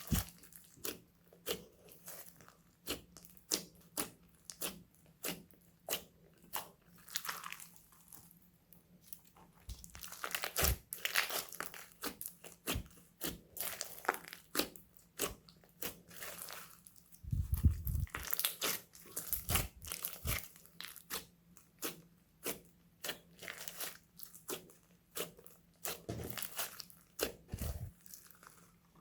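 Homemade slime being squeezed and mixed by hand, making repeated crunchy crackling pops about twice a second, with denser crackling stretches partway through.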